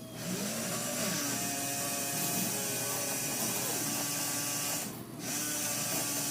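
Porsche 928's small electric gear-type washer pump running as the washers are switched on. It has been freshly reconditioned and lubricated, and it is now pumping water. It runs steadily, stops briefly about five seconds in, then starts again.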